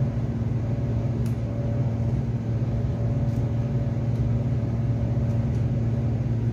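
Steady low hum of a running motor or appliance, even in level throughout, with a few faint ticks.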